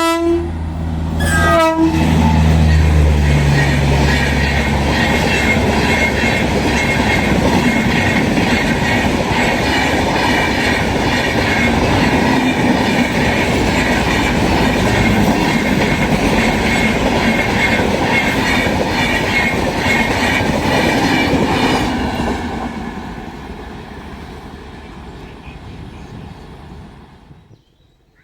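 Indian Railways express train passing at speed: the locomotive's horn sounds near the start, with a second short blast about a second and a half in, as the engine rumbles past. Then the coaches' wheels clatter steadily on the rails for about twenty seconds before fading away.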